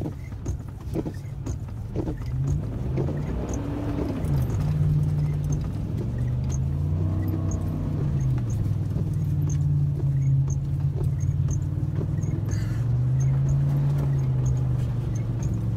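2010 Ford Raptor's V8 engine running under load, heard from inside the cab. The revs rise and fall several times as the throttle is worked.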